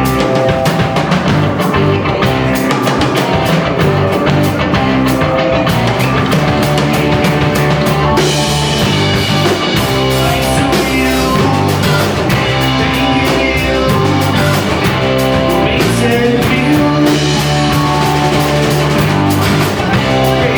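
Rock band playing live, with electric guitar and drum kit in a loud, dense mix; the cymbals get brighter about eight seconds in.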